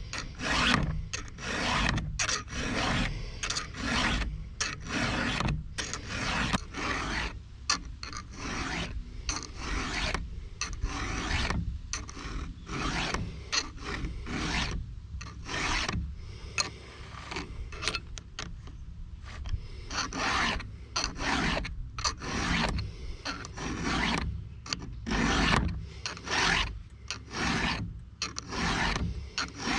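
Chainsaw chain being sharpened by hand with a file: steady, repeated rasping strokes of the file across the cutters, roughly one a second.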